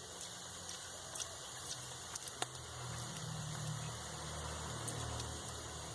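Faint sizzling of fish roe frying in oil in a pan, with a few light clicks.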